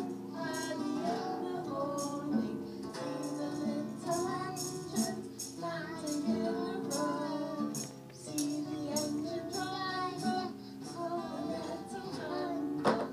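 A woman singing and strumming an acoustic guitar, with a small child singing along, in a simple children's song. A single sharp knock comes near the end.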